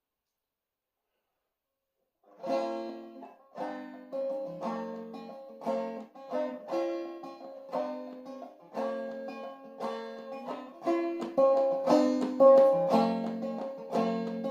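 Five-string banjo played clawhammer style in a low cGCEG tuning, picking out the song's melody with quick, ringing plucked notes. It starts after about two seconds of silence.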